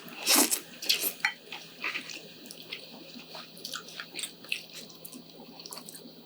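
Instant noodles being eaten close to the microphone: a couple of short slurps near the start, then wet chewing and small mouth clicks.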